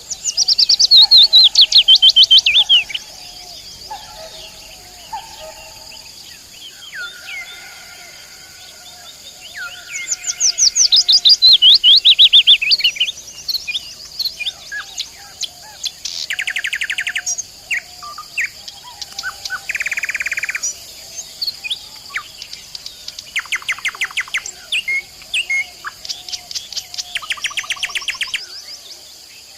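Nightingale singing: loud phrases of rapid repeated notes, some sliding down in pitch, others fast rattling trills or a single held note, with pauses of a few seconds between phrases.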